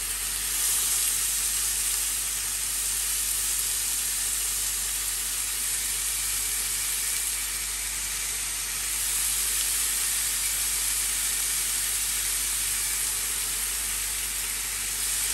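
Raw chicken strips sizzling in oil on a hot ridged grill pan, a steady hiss that carries on as more pieces are laid onto the pan.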